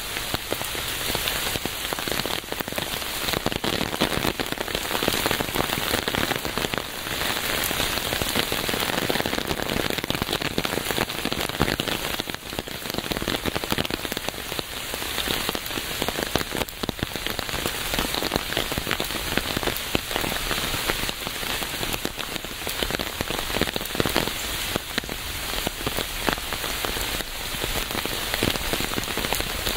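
Steady rain falling on a hard surface: a dense, even hiss with many small drop impacts.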